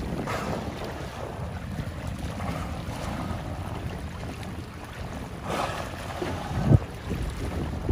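Wind buffeting the microphone over open water, with two short rushes of noise, about a third of a second in and again about five and a half seconds in, as killer whales surface and blow, and a brief low thump near the end.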